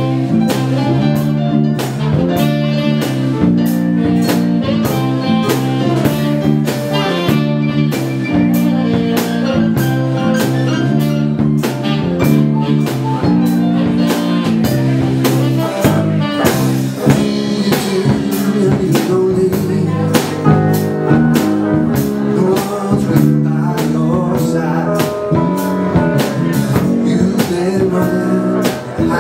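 Live dance band playing a bluesy number, a drum kit keeping a steady beat under guitar and chords.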